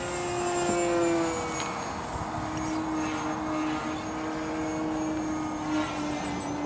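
ParkZone VisionAire RC plane's electric motor and propeller running in flight, a steady pitched hum whose pitch drops slightly about a second in, then holds.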